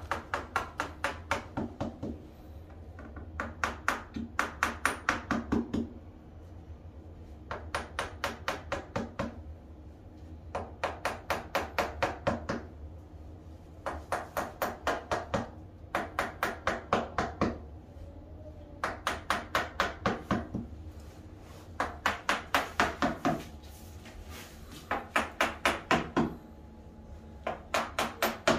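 A small hammer tapping quickly against a mounted whitetail deer head, in runs of about eight to ten light strikes over a second or two, with a short pause between runs about every three seconds.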